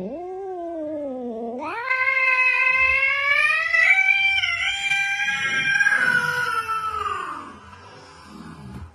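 A cat's long, drawn-out yowl (caterwaul): one continuous call that dips in pitch over the first second and a half, then rises and holds for several seconds before trailing off near the end.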